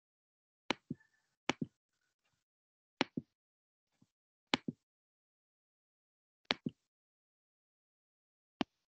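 Computer mouse clicking: five quick pairs of sharp clicks a second or two apart, then a single click near the end.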